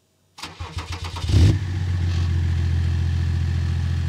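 BMW 530d's M57 three-litre straight-six diesel being started: brief uneven cranking, catching with a short rev flare about a second and a half in, then settling into a steady idle.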